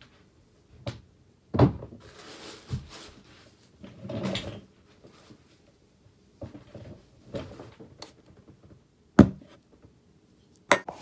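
Handling and movement close to the microphone: rustling of clothing and scattered knocks on a tabletop as someone settles at a table and sets a plastic yogurt tub down, the loudest knock coming a little before the end.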